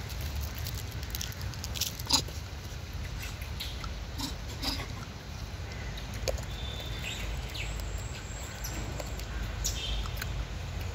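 Outdoor ambience: a steady low rumble with scattered light clicks and taps, one sharp click about two seconds in, and a few brief high chirps in the second half.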